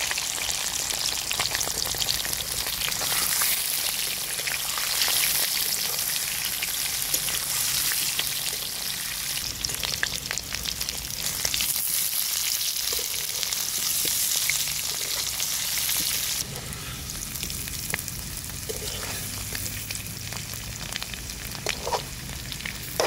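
Whole boiled potatoes sizzling as they fry in hot mustard oil in a kadhai, with a metal spatula scraping and clicking against the pan as they are turned. The sizzle drops a little quieter about two-thirds of the way through.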